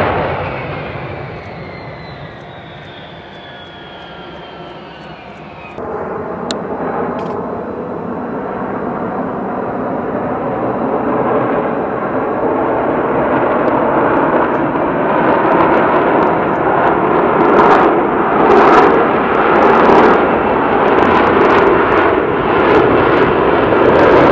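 F-35B Lightning II jet noise from its Pratt & Whitney F135 engine. First a falling whine fades as a jet slows on the runway. About six seconds in the sound jumps abruptly, and the roar of an F-35B descending in a hover builds steadily, with sharp crackles growing toward the end.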